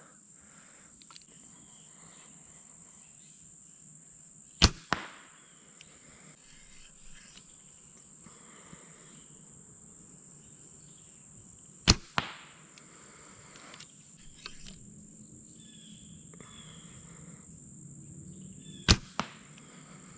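Compound bow shot three times, about seven seconds apart. Each shot is a sharp snap of the string at release, followed about a third of a second later by the smack of the arrow striking a target bag 20 yards away.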